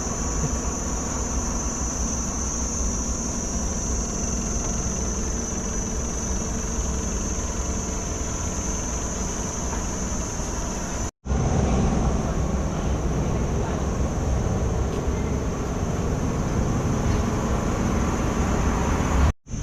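Insects buzzing as a steady high drone over a low steady rumble; about 11 seconds in the sound cuts out briefly and comes back with the rumble louder.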